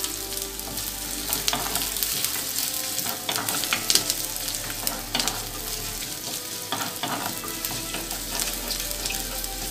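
Chopped ginger and garlic sizzling and frying in hot coconut oil in an earthenware chatti while being stirred with a wooden spatula. Throughout there is a steady sizzle, with irregular clicks and scrapes from the spatula against the clay pot.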